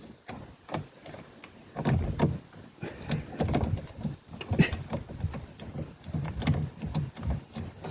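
Hand-tool work on a home-made steering wheel puller: irregular metallic clicks, knocks and scrapes.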